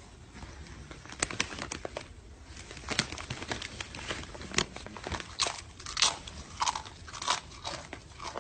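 A deer crunching and chewing chips: irregular crisp crunches, sparse at first, then coming thicker and louder from about halfway through.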